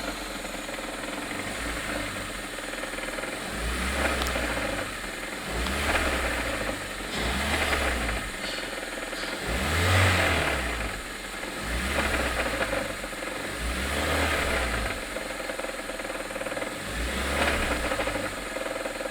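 Toyota 7A-FE four-cylinder engine revved over and over in short blips about every two seconds, with a diesel-like knocking that the owner puts down to the crankshaft pulley.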